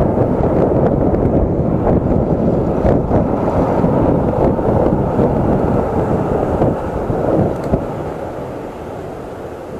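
Wind buffeting an action camera's microphone while riding an electric scooter, a dense low rushing noise with road rumble. It eases off in the last couple of seconds.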